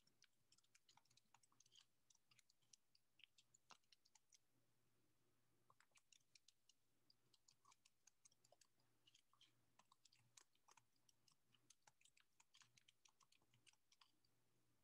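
Faint, irregular clicking of computer keys being typed, pausing briefly about four seconds in, over a low steady hum.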